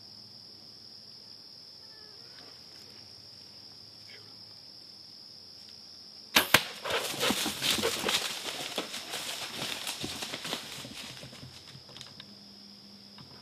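Crickets chirr steadily until, about six seconds in, a bow shot at a black bear gives two sharp cracks in quick succession. The hit bear then crashes off through the brush for about five seconds, fading away.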